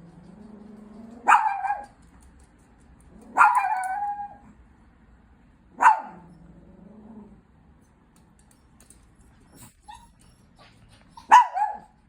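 Chihuahua growling low and barking in short, sharp yaps, four barks with growls in between: a warning, threatening display at a person beside it.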